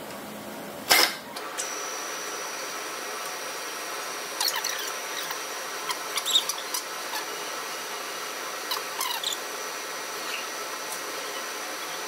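Vertical milling machine spindle running an end mill, with a steady high whine that starts after a sharp click about a second in. Several brief squeaks come as the spinning end mill is brought down to touch the nylon plug to set zero height.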